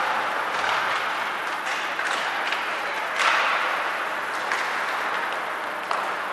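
Ice hockey game sound in an arena: a steady hiss of skates and rink noise, with scattered sharp clacks of sticks and puck, the loudest a little past three seconds in.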